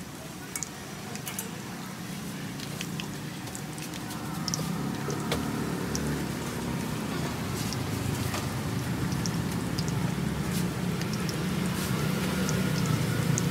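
Hot oil sizzling and crackling in a large wok of deep-frying potato and mung bean fritters, with scattered sharp pops. A low rumble comes in about four and a half seconds in and stays under the sizzle.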